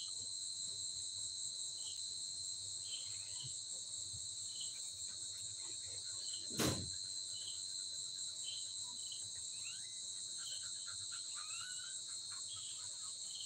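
Insects chirring steadily in a high, unbroken band, with a single knock about seven seconds in.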